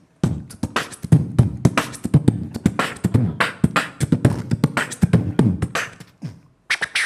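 Beatboxing into a handheld stage microphone: fast, loud mouth-made kick and snare strikes mixed with vocal sounds, starting about a quarter second in.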